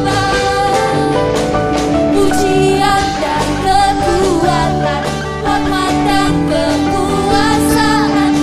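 A worship band playing a song with singing over it, with guitar and drums.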